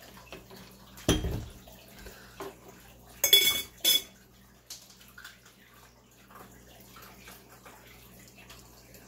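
Ceramic and glass teaware being set down and handled on a tea tray: a dull knock about a second in, then two ringing clinks a little after three seconds, which are the loudest sounds. Near the end comes a faint trickle of tea poured from a small clay teapot into a glass pitcher.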